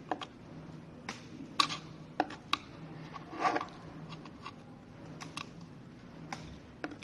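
Irregular small clicks and scraping as adhesive holding an ambient light strip is picked and scraped off, with a short scratchy scrape about three and a half seconds in.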